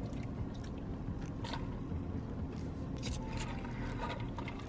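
Someone sipping an iced drink through a plastic straw from a plastic cup: quiet sips with short scraping clicks from the cup and straw, several between about one and a half and four seconds in, over a steady low hum.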